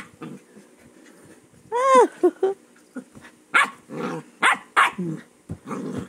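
Husky puppy vocalizing while play-fighting: one arching yelp about two seconds in, two quick yips right after, then a string of short barks.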